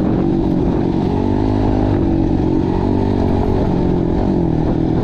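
Kawasaki dirt bike's engine running while the bike is ridden along a dirt track, its pitch wavering a little with the throttle.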